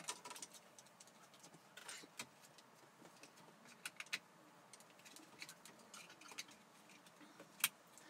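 Plastic wiring-harness connectors being handled: faint rustling of the wires with a few sharp plastic clicks, the sharpest one near the end.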